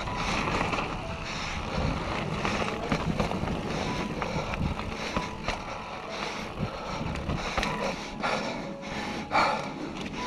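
Norco Range A1 mountain bike rolling over dirt and slickrock: steady tyre and wind noise on the microphone, broken by frequent small clicks and rattles from the bike.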